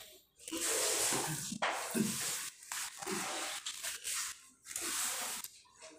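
A woman blowing air out hard through pursed lips between mouthfuls of roast chicken, in several long hissing breaths, with faint chewing under them.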